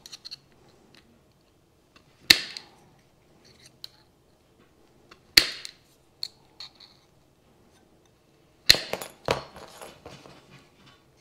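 Aviation tin snips cutting small pieces of thin sheet steel: four sharp snaps as the blades close through the metal, about two and five seconds in and two close together near the end, with light clicks of the blades and metal between.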